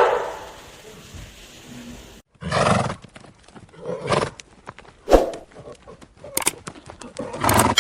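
An animal calling in several short separate bursts, roughly a second apart, mixed with a few sharp clicks.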